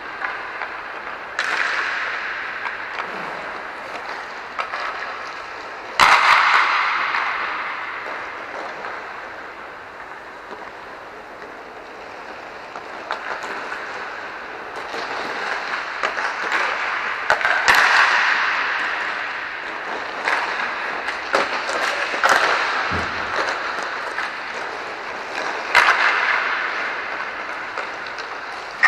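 Inline hockey play in a large echoing hall: a steady rumble of skate wheels, with repeated sharp cracks of sticks and pucks striking the boards. A few cracks are much louder than the rest, and each one rings out and dies away slowly.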